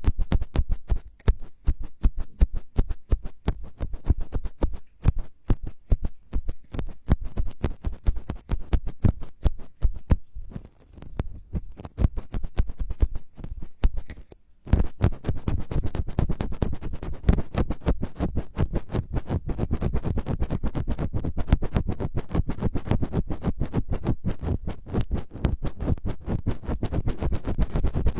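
Rapid, dense scratching close to the microphone, an ASMR trigger made of many quick small scrapes. It thins and briefly stops about halfway through, then resumes fuller.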